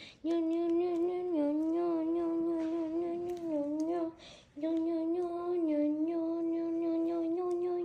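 A person humming one long held note, wavering slightly and dipping in pitch now and then, breaking off briefly about four seconds in.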